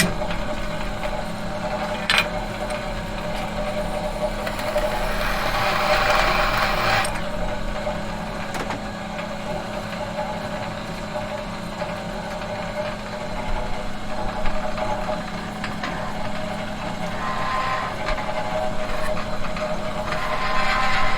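Metal machine humming steadily with a low drone and a mid-pitched tone. Twice the sound swells with a brighter, noisier whir, and a sharp click comes about two seconds in.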